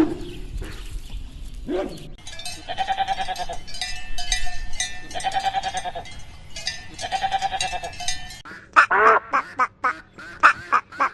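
Goat bleating, about four wavering, drawn-out calls in a row, followed about eight seconds in by a duck quacking in quick, repeated calls.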